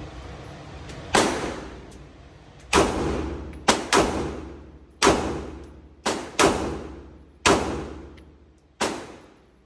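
Gunshots: about nine shots at uneven spacing, including two quick pairs, each followed by an echo that dies away over about a second.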